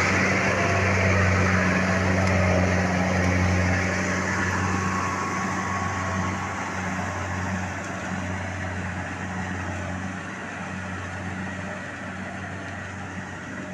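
Rice combine harvester's engine running with a steady low hum, growing gradually fainter.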